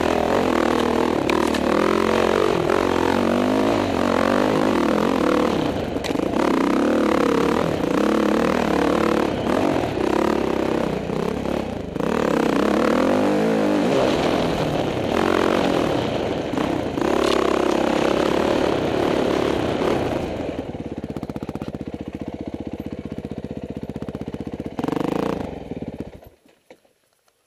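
Dirt bike engine heard from the rider's helmet, revving up and down as it is ridden along a rough trail. About twenty seconds in it settles to lower, steadier running, gives one short rev near the end, then cuts off suddenly as the engine is shut off.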